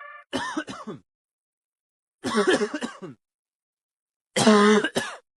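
A person coughing in three short bouts about two seconds apart, with silence between them.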